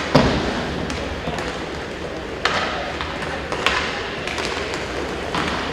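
Inline hockey play: sharp clacks of sticks and the puck on the rink floor and boards, the loudest just after the start and a few more spread through, over a steady arena background.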